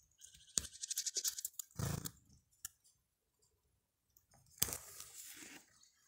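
Crunching and rustling handling noise as the camera is picked up and carried over snow, in two bursts, about a second in and near the end, with a quiet gap between.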